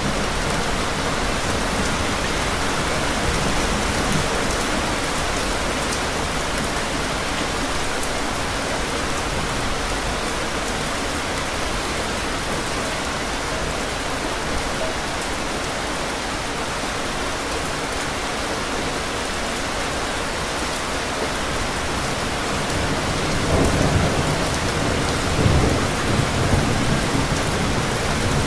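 Steady rain falling, with low thunder rumbling in a few swells near the end.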